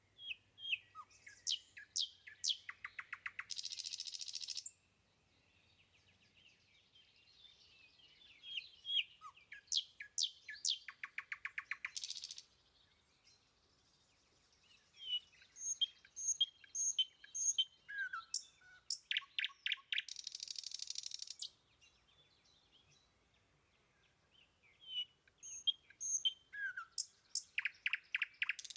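A bird singing the same song over and over, about every eight to nine seconds. Each song has quick high chirps and down-slurred whistles, then a fast rattling trill, and ends in a buzzy note lasting about a second.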